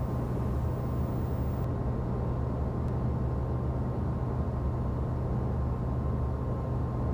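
Steady flight-deck noise of a Gulfstream G200 jet in climb: an even rush of airflow with a constant low engine hum and a faint steady tone.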